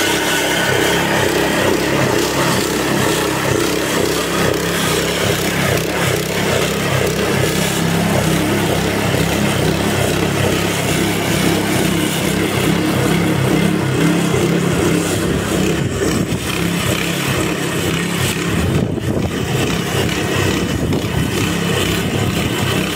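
Small petrol engine of a Weibang lawn scarifier running steadily under load while the machine is pushed across a mossy lawn, tearing out moss and thatch.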